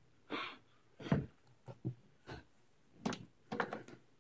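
A person moving about close to a phone's microphone: scattered short bumps, rustles and breaths, about eight in four seconds, the loudest about a second in.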